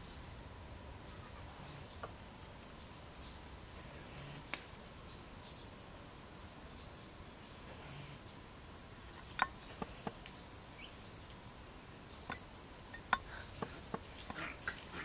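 Steady high-pitched drone of forest insects such as crickets, with scattered sharp clicks and snaps, several of them close together in the second half.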